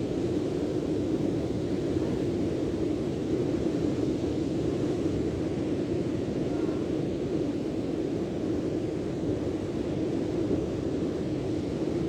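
Steady rushing seaside noise of wind and surf, even throughout with no distinct events.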